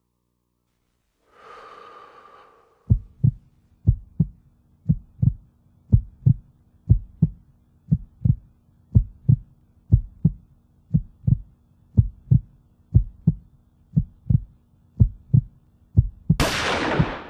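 A heartbeat sound effect, a steady lub-dub double thump about once a second, comes in after a short breathy sound. Near the end a loud blast, a gunshot, cuts across it.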